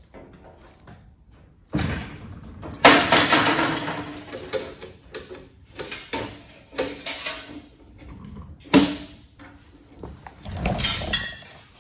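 Loose metal chain rattling and clinking as it is handled and hooked to the foot-lift pedal under a sewing machine table, with irregular handling noises and a sharp clank a little before three-quarters of the way through.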